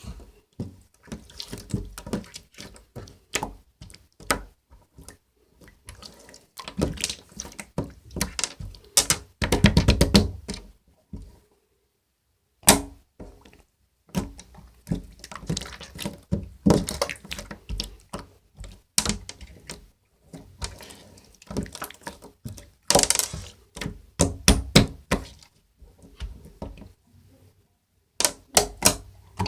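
Hands squishing, pressing and folding slime, giving wet clicks and pops of trapped air in irregular bursts with short pauses. About a third of the way in comes a quick run of clicks.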